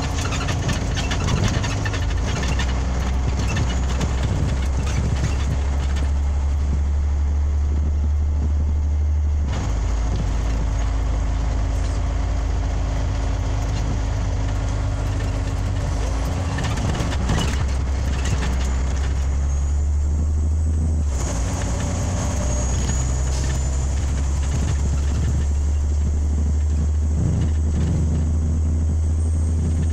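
Scania OmniLink CL94UB city bus heard from inside while it drives: the steady low drone of its nine-litre five-cylinder diesel under road and tyre noise, the engine note shifting several times as the bus changes speed.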